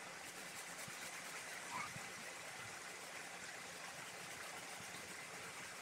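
Water running steadily from a garden hose, trickling and splashing onto a concrete floor.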